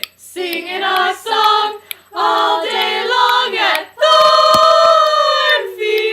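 A cappella voices singing short sung phrases, then one long held note about four seconds in, followed by a lower held note.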